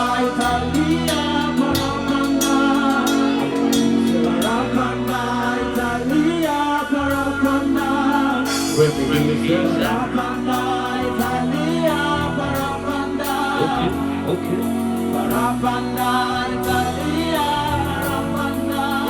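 A song performed with singing over band accompaniment: a sung melody over a bass line of held notes and light percussion.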